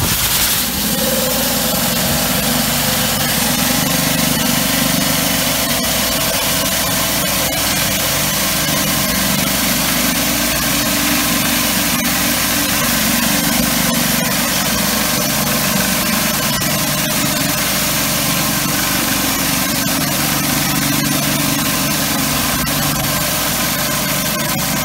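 Pressure washer's engine running steadily under the hiss of water jetting from a rotary surface cleaner's spinning spray bar onto concrete.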